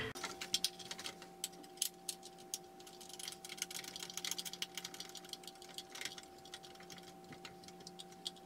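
Quick, irregular clicks and ticks of small hardware being handled as a knob-screw is turned to tighten a tool caddy onto a metal dog-grooming arm, in fast-forwarded footage, over a steady low hum.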